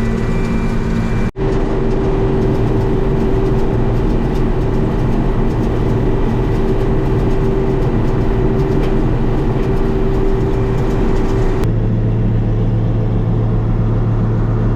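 John Deere 6620 combine running under harvest load in corn: a steady engine and machinery drone with a constant whine. It drops out for an instant about a second in and changes abruptly near the end.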